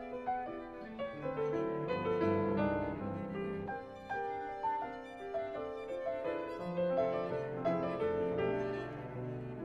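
Classical chamber music: piano with violin and cello, playing a continuous flow of changing notes.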